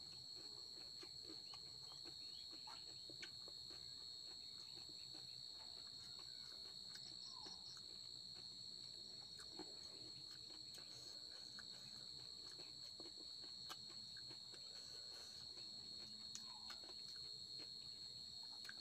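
Faint, steady, high-pitched trill of crickets, with occasional faint clicks and crunches of crisp puri shells being handled and eaten.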